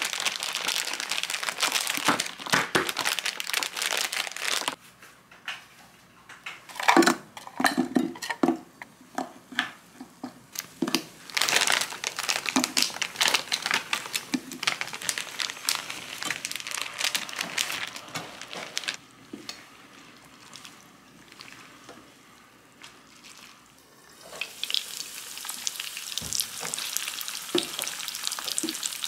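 Breaded chicken nuggets and tteokgalbi patties sizzling in shallow oil in a frying pan. A stretch of knocks and rustling comes partway through as patties are added, and the sizzle dies down for a few seconds before picking up again near the end.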